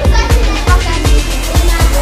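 Background music with a steady, fast beat and heavy bass.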